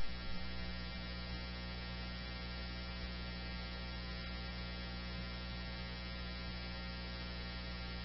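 Steady electrical hum with a buzz of evenly spaced overtones on the scanner's radio channel between transmissions.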